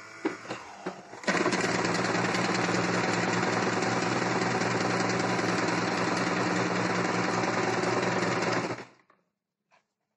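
Electric household sewing machine stitching cloth at a steady speed. It starts about a second in, runs evenly for about seven seconds and stops abruptly near the end.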